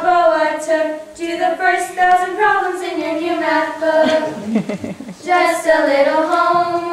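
Female singing in long held notes, with a brief break a little after four seconds.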